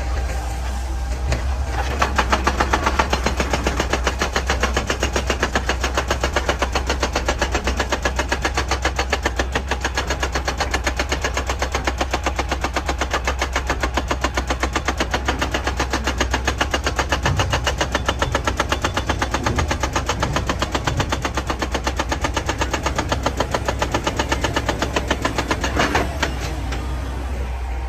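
Excavator-mounted hydraulic breaker hammering rock in a fast, even train of blows, several a second, starting about two seconds in and stopping near the end, over the steady low hum of the excavator's diesel engine.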